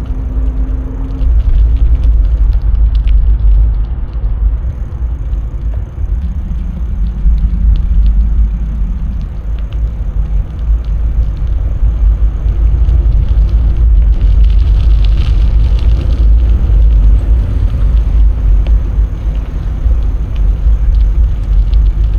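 Riding audio from a bicycle moving along a path: a steady deep rumble of wind on the microphone and rolling noise, with scattered small clicks and rattles.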